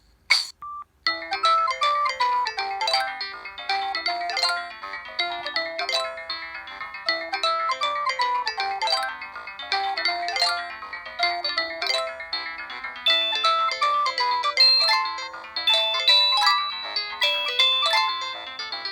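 Preloaded polyphonic ringtone on a Samsung SGH-E720 mobile phone: a busy synthesized melody of quick stepping notes. It starts about a second in, after a short pause with a click or two.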